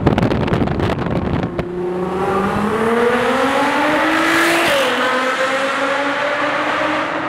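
Sports car engine accelerating hard inside a road tunnel. It opens with a rapid string of exhaust pops and crackles, then the engine note climbs steadily, drops at a gear change a little under five seconds in, and climbs again.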